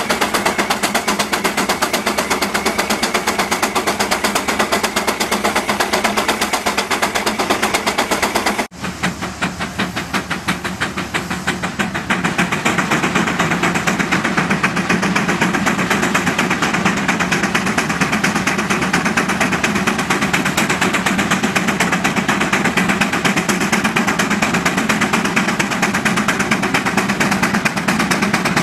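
Vintage farm engines working under plowing load, with a rapid, even beat of exhaust pulses. After a cut about nine seconds in, a steam traction engine pulling plows takes over, its exhaust beating just as rapidly.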